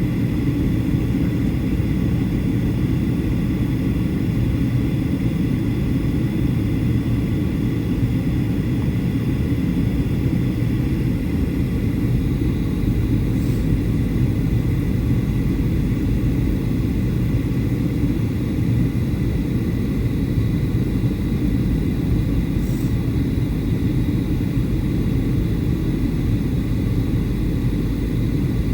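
Steady cabin noise of a Boeing 737-800 in descent: a low rumble of airflow and its CFM56 jet engines, with a faint steady high whine.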